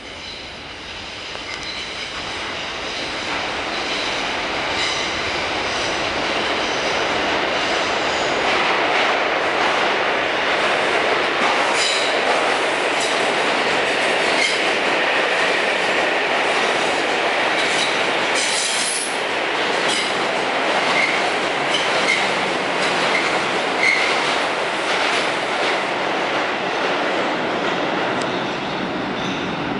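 New York City Subway R142 train passing at speed without stopping. Its running noise builds over the first few seconds as it approaches, then holds loud and steady, with clicks of the wheels over rail joints and short high wheel squeals.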